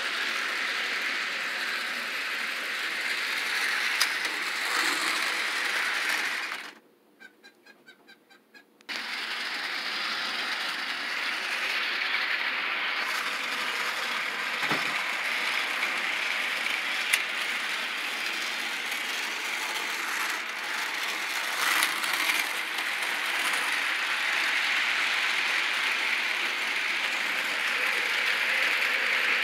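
Model train running on its track: the locomotive's small electric motor and the wheels on the rails make a steady whir with light clicking. About seven seconds in the sound drops almost to silence for about two seconds, with a few faint regular ticks.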